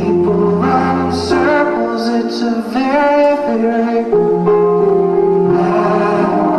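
A song with a sung melody over held instrumental chords, the music for the dance.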